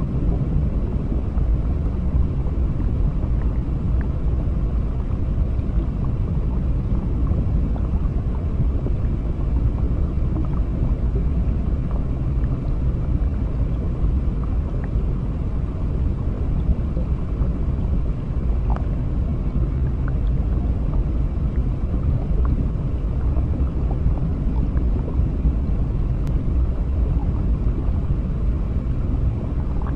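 Underwater ambience: a steady, muffled low rumble of water, with a few faint clicks scattered through it.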